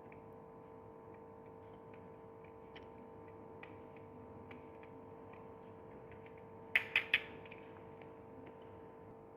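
Light ticks and taps of a small screwdriver and plastic camera parts during disassembly, with three sharp clicks in quick succession about seven seconds in, over a steady low hum.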